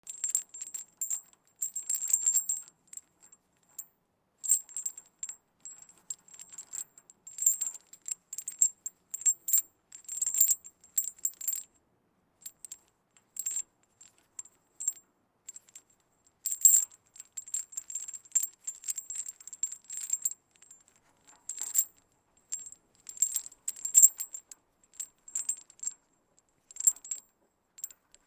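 Medium metal chain handled with the hands, its links clinking and jingling in irregular bursts with short silent gaps between them.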